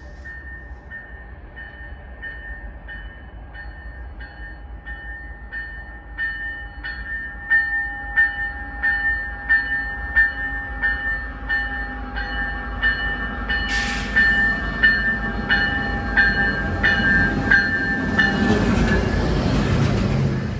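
GO Transit F59PH diesel locomotive arriving at a station platform, its bell ringing steadily about twice a second and growing louder as it approaches. About two-thirds of the way in a sudden high hiss joins it, and near the end the bell stops as the locomotive's engine and wheels rumble past close by.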